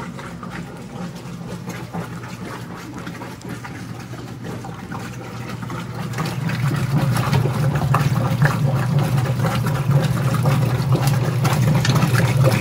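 Whirlpool direct-drive top-load washing machine running in its rinse cycle: a steady motor hum with water noise from the tub, getting louder about halfway through.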